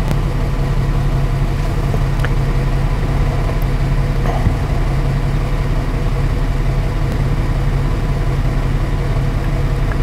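2015 Ford Transit's 3.5-litre EcoBoost twin-turbo V6 idling steadily with a low, even hum. This is an engine with an intermittent misfire that comes and goes, and it shows low vacuum at idle.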